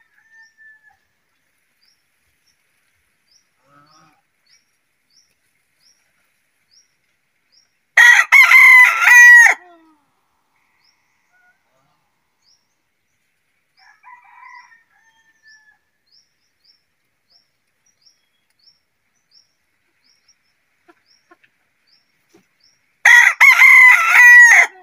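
Rooster crowing loudly twice, each crow lasting about a second and a half, once about eight seconds in and again near the end. A much fainter call is heard between the two crows.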